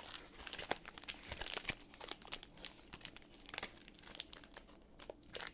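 Foil Pokémon booster pack wrappers crinkling and being torn open by hand, a busy run of sharp crackles and snaps.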